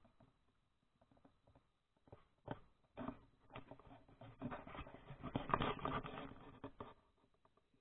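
Muffled handling noise from a hand-held action camera: irregular rubbing, scuffs and small knocks, sparse at first, then busier from about two and a half seconds in until near the end.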